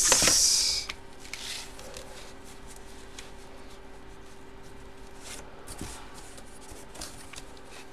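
A large photo print being slid and handled: a loud sliding rub in the first second, then a few faint rustles over a steady low electrical hum.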